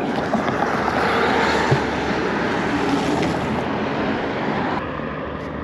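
Steady rush of road traffic passing close by, with a low engine hum underneath, easing off about five seconds in.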